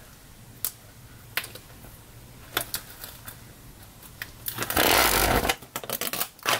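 Handling of paper-craft pieces on a work table: scattered light taps and clicks, then about a second of loud rustling past the middle, followed by a few crackles.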